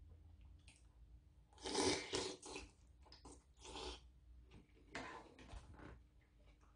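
A man eating spoonfuls of sundaeguk meat and broth close to the microphone, with three short noisy bursts of slurping and mouth sounds and quieter chewing between them.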